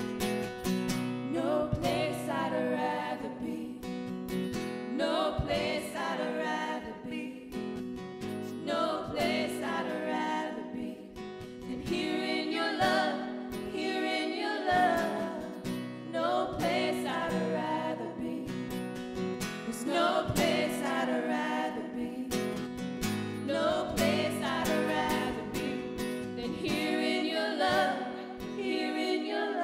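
Church praise team singing a worship song, a woman's voice leading in phrases of a couple of seconds each, over acoustic guitar and steady held chords.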